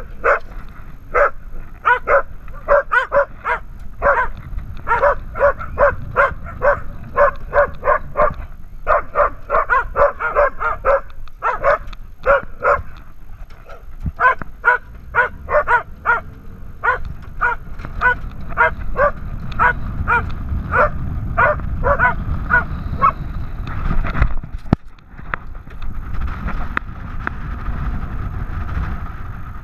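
Dog barking over and over, close to the microphone, about two to three barks a second in long runs with short breaks, stopping about 23 seconds in. Under it is a low rumble of wind on the microphone as the vehicle moves, louder after the barking stops.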